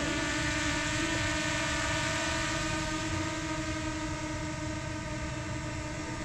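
DJI Mini 2 drone's propeller motors spinning, a steady multi-tone whine as it lifts off the deck.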